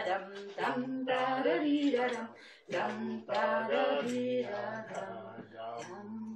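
People singing a song without accompaniment, mainly a woman's voice, in short phrases with held notes.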